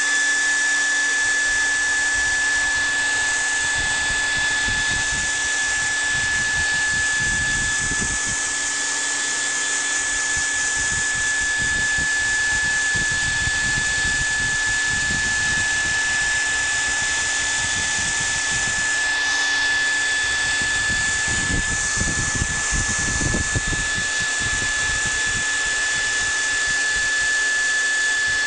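Handheld hair dryer running on its low setting: a steady high motor whine over the rush of air, with irregular low rumbles.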